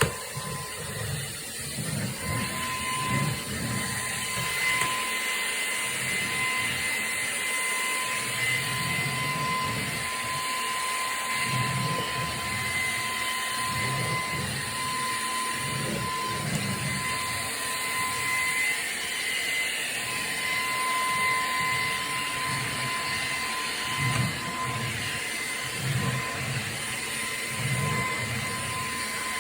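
Vacuum cleaner running continuously with a steady high-pitched motor whine over a rushing hiss, with a low rumble that swells and fades every few seconds as it is moved about.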